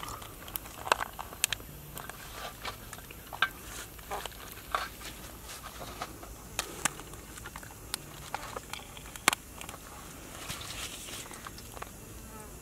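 King crab shell cracking and snapping as hands pry the top shell off the body and pull the meat apart: scattered sharp clicks and cracks at an uneven pace, the loudest about nine seconds in.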